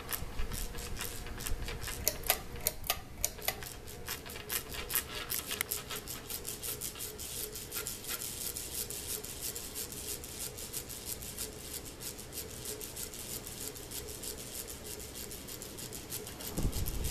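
52-inch Lasko Turn of the Century ceiling fan running on a higher speed: a rapid, even clicking rattle from blade vibration over a steady motor hum.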